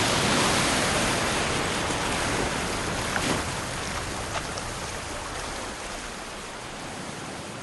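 Sea surf washing in a steady wash of wave noise that slowly fades out as the song ends.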